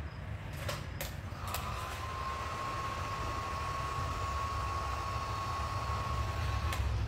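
Handheld gas torch clicked a few times to light, then burning with a steady hiss and a thin, even whistle for about five seconds before shutting off. It is being passed over wet epoxy resin to pop bubbles and bring up cells.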